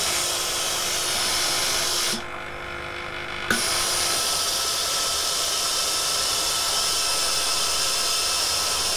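Philips steam generator iron giving out steam with a steady hiss while its trigger is held, the sign that the newly fitted water pump is feeding it again. The hiss drops away for about a second and a half around two seconds in, then comes back with a click.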